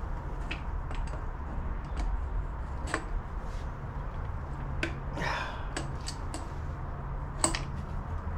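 Scattered light metallic clicks and clinks, a dozen or so, from gloved hands and a tool working on a power steering hose fitting, with a brief scrape about five seconds in, over a steady low hum.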